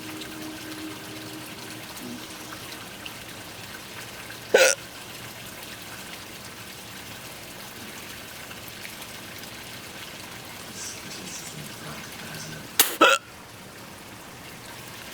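Sharp involuntary hiccups: one about four and a half seconds in and another, doubled, near the end, over a steady hiss of rain.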